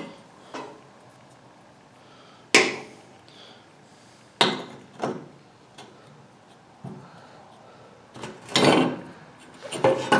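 Metal parts of an electric tractor PTO clutch being handled and set down on a workbench: a string of separate knocks and clanks, with a longer clatter about a second and a half before the end.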